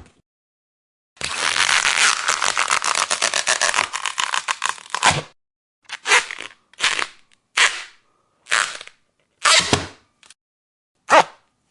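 Rubber being stretched, creaking with a rapid crackle: one long stretch of about four seconds, then six short separate stretches with pauses between them.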